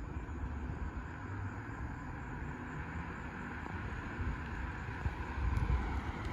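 Ford Probe GT's 2.5-litre V6 running as the car moves slowly, a steady low rumble that swells a little near the end. The clutch pedal is staying near the floor, a failing clutch that the owner blames on a transmission needing replacement.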